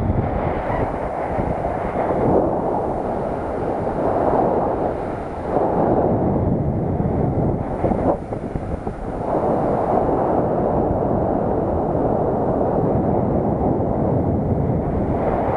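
Wind buffeting the microphone of a paraglider pilot's camera in flight: a loud, deep rushing noise that swells and dips in gusts, then runs steadier for the second half.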